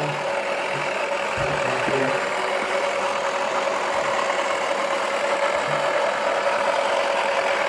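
Small electric motor of a Wacky Washer toy washing machine running steadily, a constant whine over a rattly drone.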